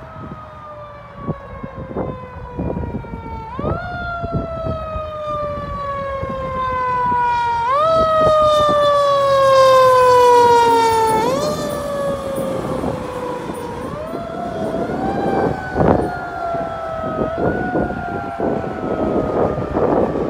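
Fire engine siren wailing in slow cycles, each a quick rise followed by a long falling tone. It grows loudest about ten seconds in as the truck approaches. Truck engine and road noise follow, with one sharp bang about sixteen seconds in.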